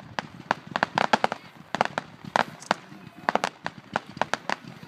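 Ground-effect fireworks crackling: an irregular string of sharp pops and cracks, several a second, coming in clusters.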